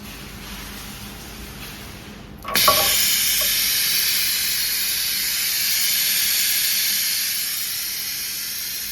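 About two and a half seconds in, a short knock is followed by a sudden loud, steady hiss of air that runs on, easing slightly. It is the hot-bar bonding machine's head being cooled after the heated press.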